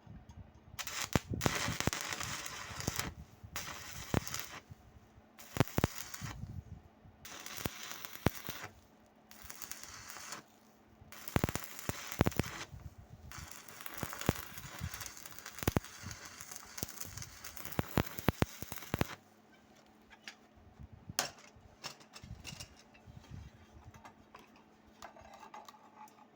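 Stick-welding arc crackling and popping in a series of short runs a second or a few seconds long, with brief pauses between them. After about 19 s it gives way to a few quieter clicks.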